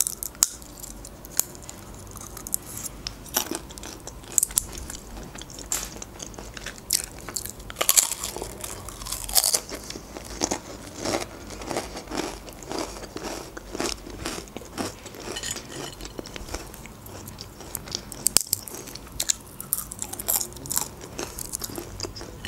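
Close-up chewing of crunchy salty snacks, with many small irregular crunches and mouth sounds.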